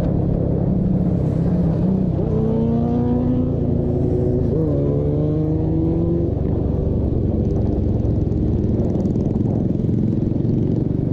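Motorcycles riding at highway speed: a steady low engine and road rumble. About two seconds in, a motorcycle engine accelerates, its pitch climbing for a couple of seconds with a short break in the climb halfway through, the pitch still rising more slowly until about six seconds in.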